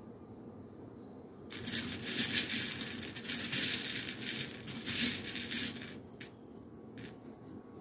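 Small silver metal charms being stirred by hand in a glass dish: a dense jingling rattle of many metal pieces starting about a second and a half in and lasting about four and a half seconds, then a few separate clinks as individual charms are picked out.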